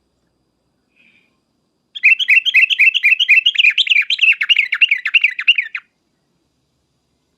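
Yellow-vented bulbul (trucuk) giving a fast, chattering run of repeated notes for about four seconds, starting about two seconds in, after a faint short call about a second in.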